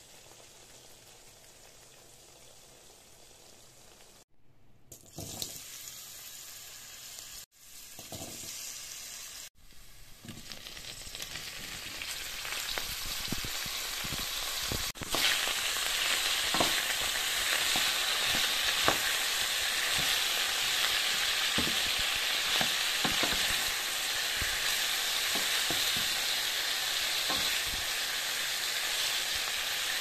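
Sliced leeks and carrots sizzling in a stainless steel pan as they are stirred with a wooden spoon, the spoon knocking against the pan now and then. The sizzle is faint at first and builds, steady and loud from about halfway.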